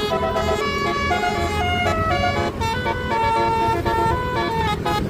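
A bus's basuri musical air horn playing a quick tune of steady horn notes that change pitch every fraction of a second, over the low running of the bus.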